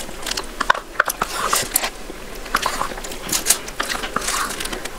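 Close-miked mouth sounds of eating ice cream: irregular wet lip smacks and clicks as a wooden spoon goes in and out of the mouth, with the spoon scraping the paper cup.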